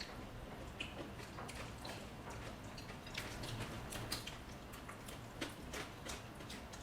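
Faint, scattered small clicks and ticks: the table and mouth sounds of people eating, with the odd light tap of cutlery or dishes.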